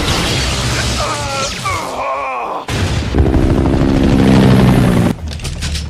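Animated robot-fight soundtrack: heavy booms and impacts with strained, voice-like grunts over background music. A low steady drone sits under the middle, and a rapid run of clicks comes near the end.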